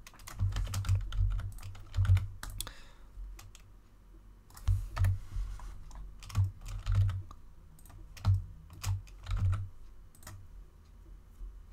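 Computer keyboard keys tapped in short, irregular runs of presses, each with a dull thud, with a lull about four seconds in.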